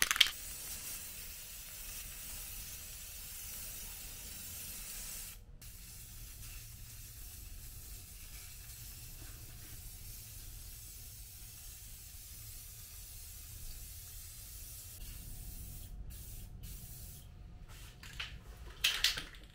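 Aerosol can of Fusion all-in-one paint and primer spraying: a steady hiss in long passes, broken by a short stop about five seconds in and a few quick stops near the end.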